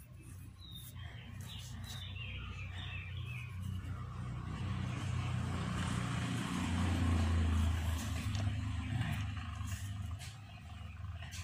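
Low engine rumble of a motor vehicle that builds, is loudest about seven seconds in, then fades.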